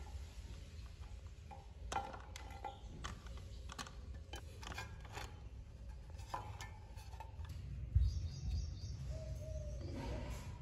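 Scattered light clicks and taps of a small black model excavator bucket being handled and fitted onto the wooden boom arm, with a soft knock about eight seconds in.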